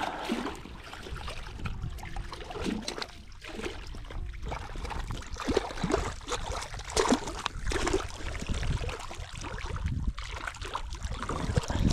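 Irregular splashing and sloshing in shallow water, with scattered knocks, as a hooked trout thrashes while being unhooked at the bank.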